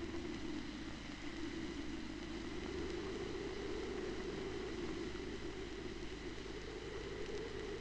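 Steady hiss and low hum of an old film soundtrack, the background noise between narration lines, with no distinct events.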